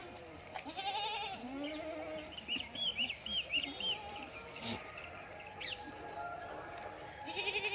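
Sirohi goat kids bleating: several quavering calls overlapping and coming again and again. A short run of high chirps sounds in the middle.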